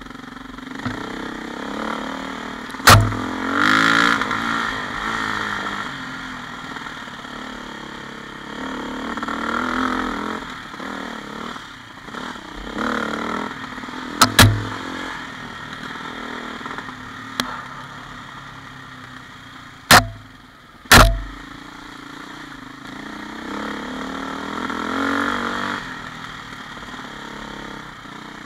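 KTM 400 EXC four-stroke single-cylinder dirt bike engine running at low to middling revs, the revs rising and falling several times as the throttle is opened and closed. Four sharp knocks break through, one about three seconds in, one near the middle and two close together about two thirds of the way through.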